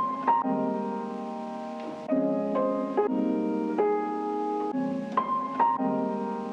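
Background music: soft piano-led instrumental with sustained chords changing about once a second.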